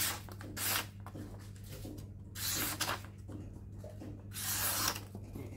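Sharp utility knife slicing through a sheet of paper: four short papery hisses, a paper-sharpness test of the blade.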